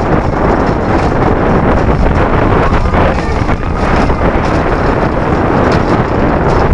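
Loud, steady wind rushing over the microphone of a camera held on a moving steel roller coaster, with the deep rumble of the train running on its track underneath.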